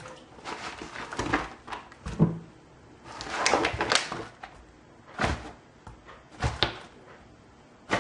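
Kitchen things being handled: a series of knocks and thunks, with a longer rustling, clattering stretch about three to four seconds in.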